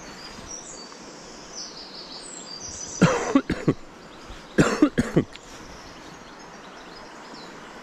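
A person coughs twice, about three seconds in and again near five seconds, over the steady rush of a swollen, fast-running river, with birds chirping faintly.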